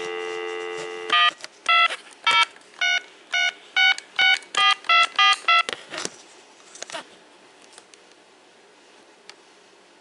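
Lenoxx Sound PH-543 corded telephone on an open line: the steady dial tone cuts off about a second in as a number is keyed, about eleven short touch-tone (DTMF) beeps in a quick run, then faint line hiss while the call connects.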